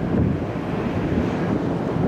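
Wind buffeting the microphone on the open deck of a moving ferry: a steady, gusty rushing noise.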